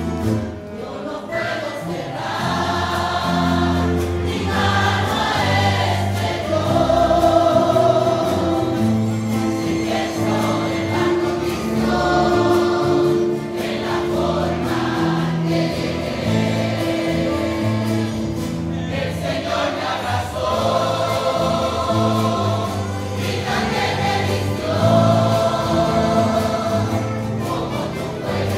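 A mixed choir singing a hymn in long held phrases with brief breaks between lines, accompanied by a string band of guitars and mandolins.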